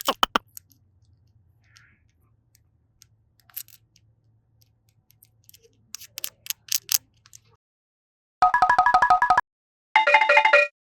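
Faint scattered clicks and taps, with a quick cluster of ticks about six seconds in. Then two short electronic sound-effect jingles of rapidly repeating beeping tones, each about a second long and louder than anything before them.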